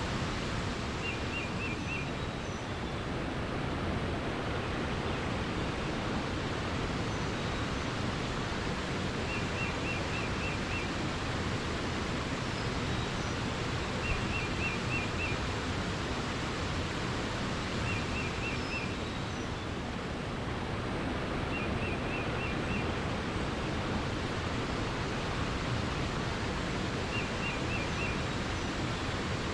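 Steady rush of flowing water. Over it a small songbird repeats a short trill of about five or six quick notes six times, and fainter high chirps come now and then.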